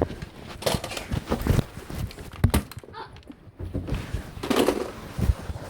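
A run of irregular knocks and thuds, a dozen or so, uneven in spacing.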